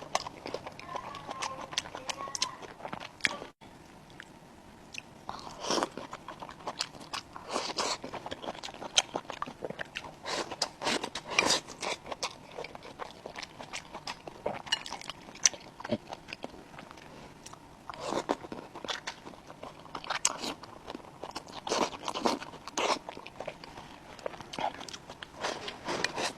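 Close-up eating sounds: a person chewing and crunching mouthfuls of food, with irregular wet smacks and crisp clicks.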